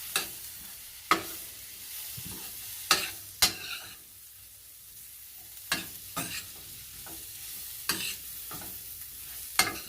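Onion and turmeric sizzling in olive oil in a saucepan while being stirred, with a utensil knocking and scraping against the pan about eight times at uneven intervals over a steady, faint frying hiss.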